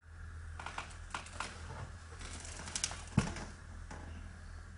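Scattered small clicks and taps over a low steady hum, with one louder knock a little after three seconds in.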